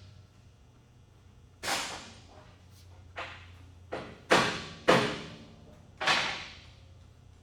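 Metal clanks and bangs of tools and parts being handled in an auto repair shop: about six irregular strikes, each ringing out briefly, the loudest two close together in the middle, over a steady faint low hum.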